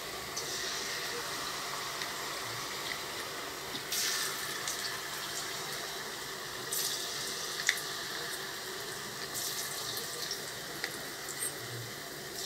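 Battered potato pieces deep-frying in hot oil: a steady sizzle with a few brief louder crackles.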